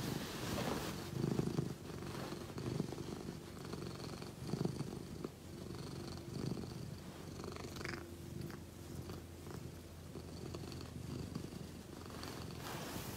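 Egyptian Mau cat purring close up, a steady low rumble that swells and eases with its breaths.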